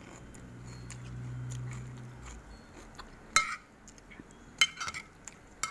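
A metal spoon clinking against a ceramic plate of larb moo (minced pork salad) as a mouthful is scooped up: a few sharp, ringing clinks in the second half. A low steady hum fills the first two seconds.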